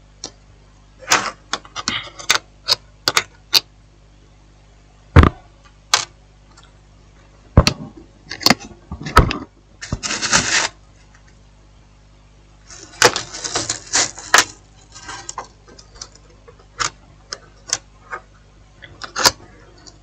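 Scattered sharp clicks and light clatter of small phone parts being handled, pressed into place and set down on a workbench during reassembly. There are short scraping spells about halfway through and again a few seconds later.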